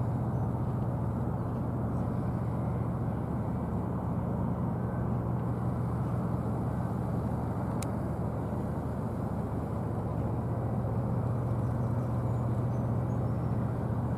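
A steady low mechanical drone with a constant hum, unchanging throughout, and a single faint click about eight seconds in.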